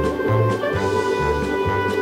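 Background instrumental music with held notes over a bass line that changes note about twice a second.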